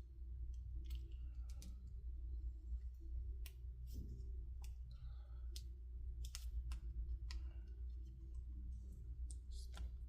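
Scattered light clicks and ticks of small plastic laptop parts and a ribbon-cable connector being handled during a keyboard swap, over a steady low hum.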